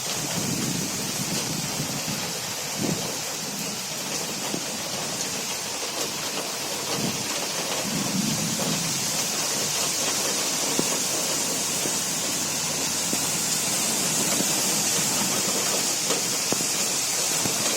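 Heavy rain pouring steadily, with a few low rumbles rising and fading, growing slightly louder towards the end.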